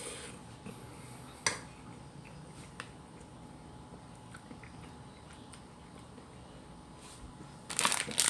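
Quiet eating sounds with small ticks and one sharp click about a second and a half in, then a plastic food wrapper crinkling near the end.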